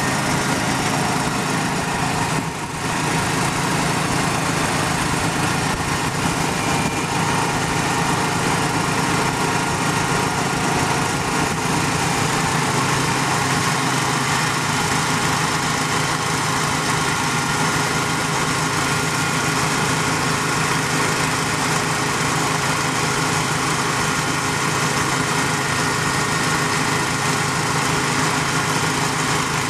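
Engine running steadily, powering a 3-point-hitch hydraulic well-drilling rig; the sound dips briefly about two and a half seconds in.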